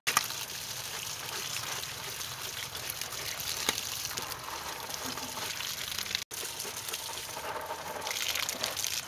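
Tap water running and splashing onto a jackfruit lying on banana leaves, a steady rush of water. The sound drops out for a moment about six seconds in.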